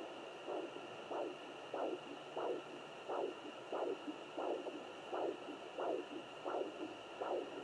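Handheld fetal doppler relaying a steady pulse as whooshing beats, about one and a half a second, over a steady hiss. It is the user's own pulse picked up by the probe, not the baby's heartbeat, as she judges it herself.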